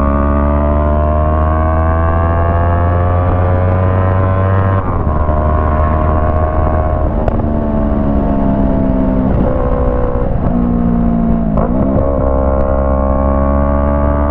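Yamaha MT-03 motorcycle with a Jeskap aftermarket exhaust running under way. The engine note climbs slowly for about five seconds, then drops suddenly, then holds steady with brief dips in revs about ten and twelve seconds in.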